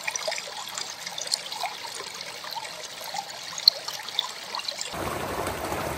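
Small mountain stream trickling and gurgling over rocks, dotted with little plinks of water. About five seconds in it changes to a fuller, steadier rush of water.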